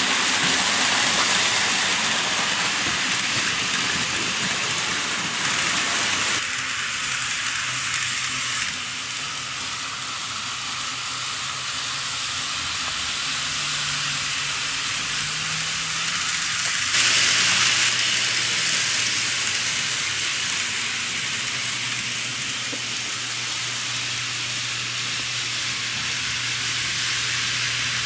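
Plarail Advance toy trains and N-gauge model trains running on their track: a steady hissing rattle of wheels on rails over a low electric-motor hum. The sound changes abruptly about six seconds in and again about seventeen seconds in.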